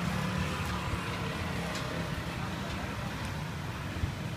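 Street ambience: a steady low rumble of passing traffic with indistinct voices.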